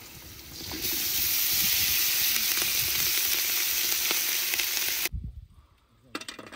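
Hot oil sizzling loudly in a pot of sliced potatoes over a wood fire as parboiled rice is tipped in on top. The sizzle starts about a second in and cuts off suddenly about four seconds later, followed by a few faint knocks.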